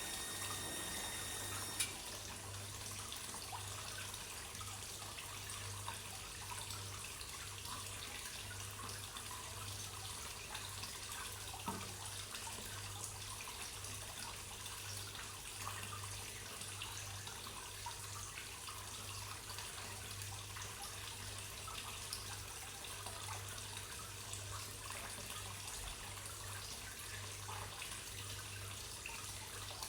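Water trickling and splashing steadily into a koi pond, with many small drips over a low steady hum. A steady high tone with several overtones cuts off with a click about two seconds in.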